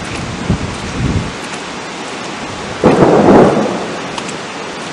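Steady wind and rain noise from a thunderstorm, with a sudden loud crack of thunder about three seconds in that fades over about a second.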